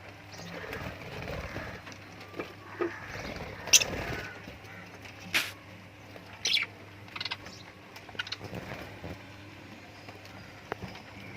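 Small pet parrots (love birds) giving short, sharp chirps, scattered singly a second or two apart, over a faint steady low hum.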